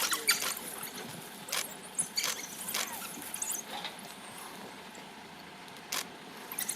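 African wild dogs (painted wolves) giving short, high-pitched squeaky twitters while playing, scattered and thicker in the first few seconds. A single sharp click comes about six seconds in.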